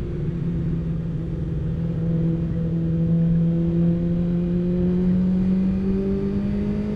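Motorcycle engine pulling steadily under throttle while riding, its note climbing slowly as the revs build, over a low rumble of wind and road noise.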